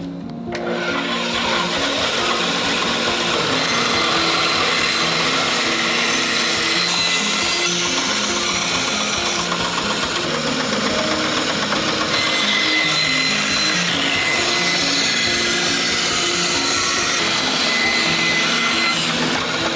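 Band saw cutting through a thick wooden board, a steady loud rasping hiss of the blade in the wood that starts about half a second in.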